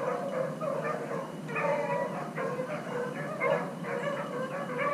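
A pack of beagles baying together on a rabbit's track, many voices overlapping without a break: the hounds are in full chase, running the rabbit.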